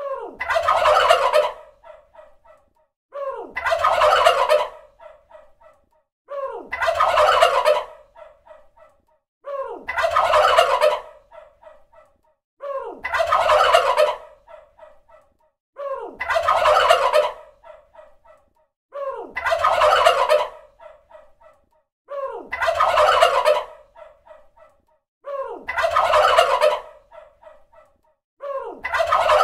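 Turkey tom gobbling, the same rattling gobble repeated about every three seconds, each one trailing off in a few quieter notes.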